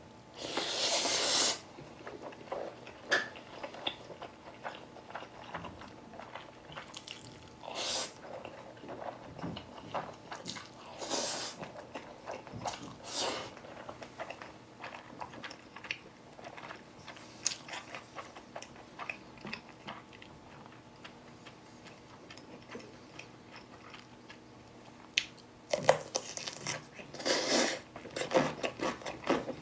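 Close-up eating sounds: biting and chewing, with crunches, broken by several short loud bursts of noise, heaviest in a cluster near the end.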